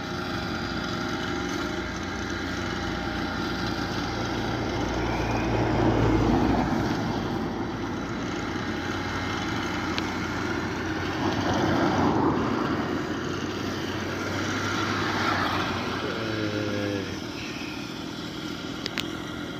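An engine running steadily, with three louder swells of noise that rise and fade over a second or two each.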